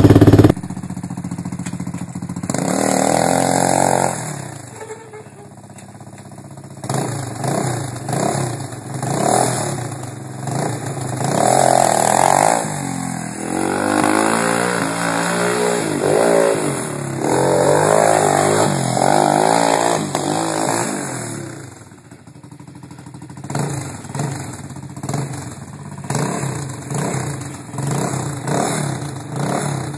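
Gio Rebel T3 200cc ATV, fitted with an aftermarket exhaust, being ridden. Its engine revs up and drops back again and again as the rider works the throttle, and grows quieter twice as the quad moves away.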